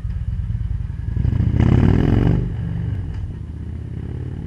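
Victory Cross Country motorcycle's V-twin with a loud exhaust, accelerating away hard: the engine rises in pitch to a peak about two seconds in, then eases off and fades as the bike rides into the distance.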